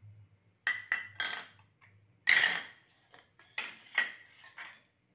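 Kitchen dishes and utensils clattering: three short bouts of knocks and scrapes with a faint ringing, the loudest about two seconds in.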